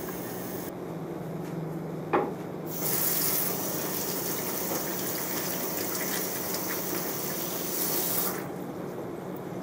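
Kitchen tap running into a stainless steel sink as frozen corn kernels are rinsed in a plastic colander under the stream: a steady splashing hiss that starts about three seconds in and stops shortly before the end. A single sharp knock about two seconds in.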